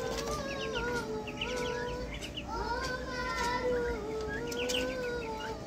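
Young turkeys and Muscovy ducklings calling while they feed, long wavering whistled calls overlapping one another, with rapid high peeps in quick runs and light clicks of beaks pecking at the food pans.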